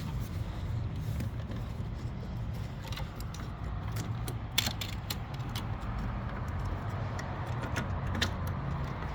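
Scattered light clicks and rattles of a spark plug wire being worked and snaked past hoses and other wires in an engine bay, over a steady low rumble.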